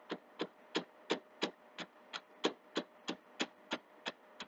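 A steady series of light, sharp taps or ticks, evenly spaced at about three a second, over a faint electrical hum.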